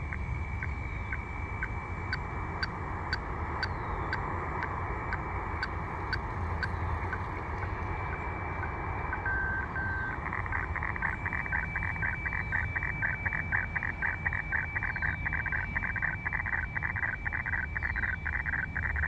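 Shortwave radio weather fax signal from the New Orleans broadcast, heard through a Tecsun PL-990x portable receiver's speaker in upper sideband. It is a steady high tone with a short tick twice a second. About nine seconds in comes a brief lower tone, and from about ten seconds on a fast buzzing warble as the lines of a new weather chart come through.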